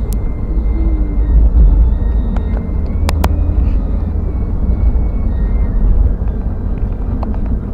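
Steady low rumble of a car driving, engine and tyre noise heard from inside the cabin, with two sharp clicks in quick succession about three seconds in.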